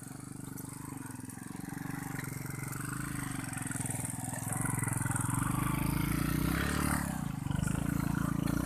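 Motorcycle engine running hard with an even low pulse, growing louder over the first few seconds and then holding steady, with a brief dip near the end.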